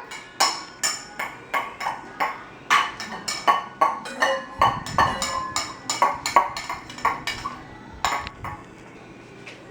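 Children's play pots, pans and utensils clinking and tapping against one another, about three quick strikes a second with short metallic rings, stopping near the end.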